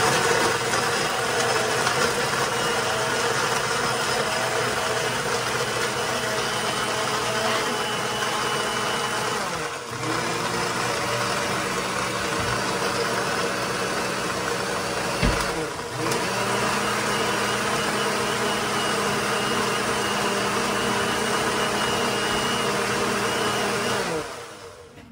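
Countertop blender motor running steadily, blending a watermelon drink. Twice, about ten and sixteen seconds in, the motor briefly slows and speeds up again as it is switched off and on. It stops about a second before the end.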